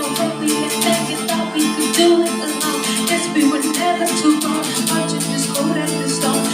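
Instrumental song intro: sustained plucked-string chords with a rattling shaker-like percussion keeping a steady quick beat, no voice yet.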